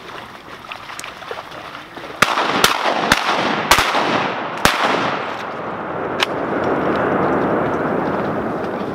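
A volley of about six shotgun shots from several duck hunters over some four seconds, starting about two seconds in, with a steady rushing noise rising under the shots and lasting after them.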